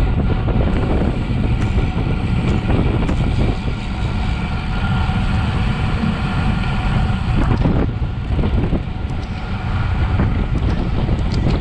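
Wind rushing over a bicycle-mounted camera's microphone at race speed, with road-bike tyre noise on the tarmac underneath and a few faint clicks.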